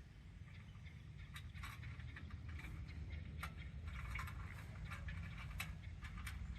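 A low, steady engine rumble heard from a distance, growing slightly louder, with scattered light clicks and taps over it.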